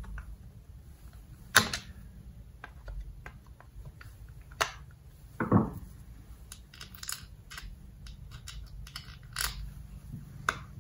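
Small metal parts of a 7.5 hp Mercury outboard carburetor clicking and tapping as it is handled and assembled on a workbench: scattered light clicks, a sharp click about a second and a half in, and a duller thump about five and a half seconds in.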